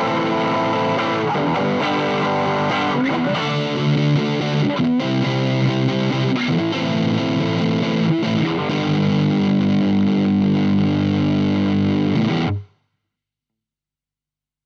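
Washburn WIN14 electric guitar played through a Boss OS-2 Overdrive/Distortion pedal into a Blackstar HT-5 amp, playing distorted chords that ring out and change every second or two. A final chord is held, then cuts off sharply about twelve and a half seconds in.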